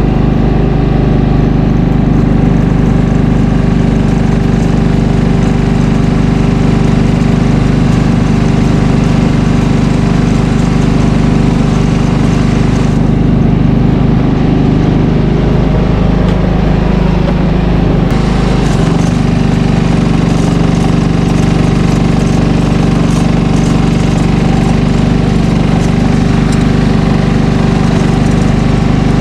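Snowblower engine running steadily while clearing snow. About halfway through, the higher rushing noise fades for a few seconds, and the engine note shifts slightly as it returns.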